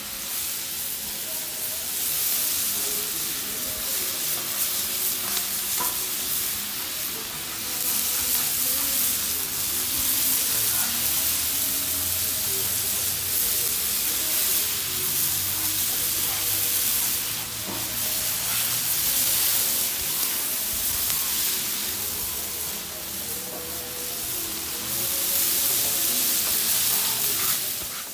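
Beef fajita strips with sliced peppers and onions sizzling on a hot flat-top griddle, stirred and turned with a spatula; the sizzle swells and eases as the food is moved around.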